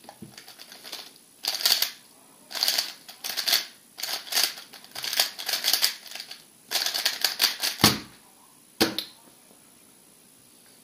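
MoYu RS3 M 2020 3x3 speedcube turned at speed during a solve: bursts of rapid plastic clicking from the layer turns, with brief pauses between groups of moves. About eight seconds in come two heavier thumps as the solve ends on the timer mat.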